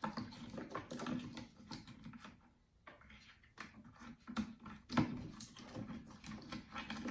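Irregular light clicks and taps of a hex key and metal parts as a pedal screw on an electric unicycle is driven in, with a brief lull about two and a half seconds in and a sharper knock about five seconds in.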